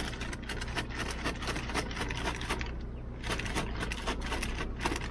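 Animal feed pellets rattling in a container: a rapid, irregular clatter of small clicks. A steady low hum of the idling car sits underneath.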